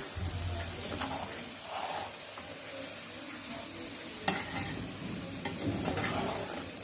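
Metal spoon stirring and scraping cooked rice around an aluminium cooking pot, with a couple of sharp clinks, about four seconds in and again a second later, as the spoon strikes the pot.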